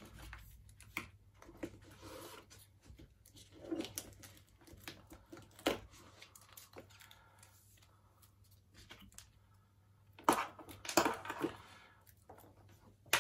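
Hands lifting leather-strapped wristwatches out of a presentation box: scattered rustles, light clicks and crinkles of the box insert, straps and plastic-wrapped swing tags, with a louder flurry of rustling and knocks around ten to eleven seconds in.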